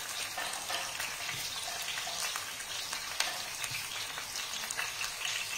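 Food sizzling in oil in a pan on the stove: a steady crackling hiss, with a few light clicks.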